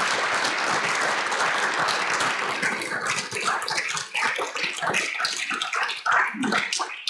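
A roomful of people applauding, at first a dense, even clapping that thins out into scattered separate claps from about three seconds in.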